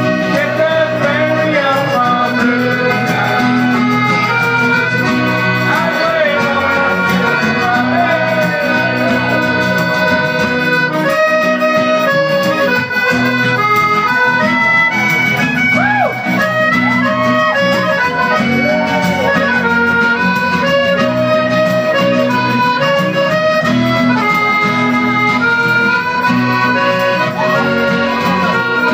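Live folk-rock band music led by a piano accordion playing the melody in held, stepping notes, over acoustic guitar and a steady backing.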